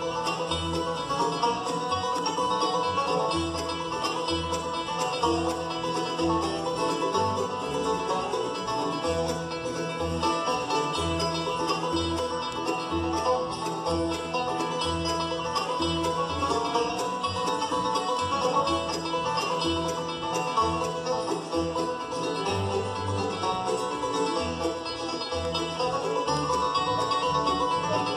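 Live bluegrass band playing: banjo, mandolin, acoustic guitars, dobro and upright bass, with the bass plucking a steady beat of about two notes a second.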